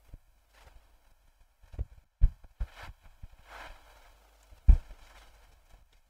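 A few soft, deep thumps and taps from a pen and hand bumping a drawing tablet on a desk during handwriting. The strongest come a little after two seconds and just before five seconds in, with a faint breath between them.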